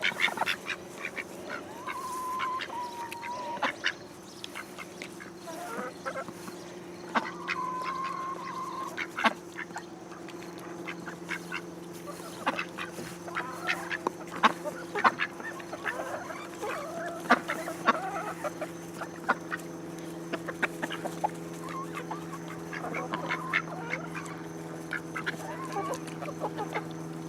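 Pekin ducks calling and quacking while they eat, with many short clicks and pecks throughout and two longer held calls in the first ten seconds. A steady low hum runs underneath.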